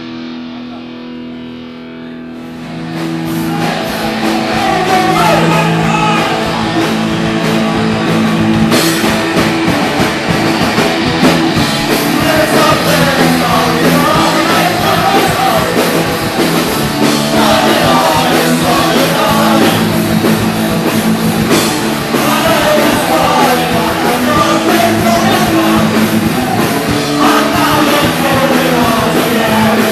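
Punk rock band playing live, with distorted electric guitar, drum kit and shouted singing. It opens on a quieter guitar part, and the full band comes in loud about two and a half seconds in.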